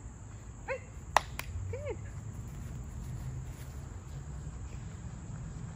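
Two sharp clicks a moment apart, the first loud, between two brief hummed or voiced sounds, over a steady low outdoor rumble.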